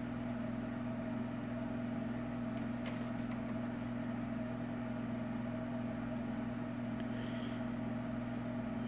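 A steady low electrical hum, even in pitch and level throughout, with a faint tick about three seconds in.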